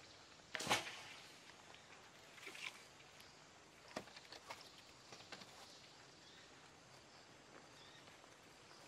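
Footsteps and rustling in dry grass and undergrowth: a few scattered crackles, the loudest one about a second in.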